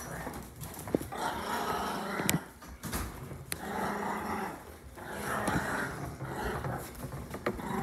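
A dog growling in four rough bursts of about a second each, with a few sharp taps in between.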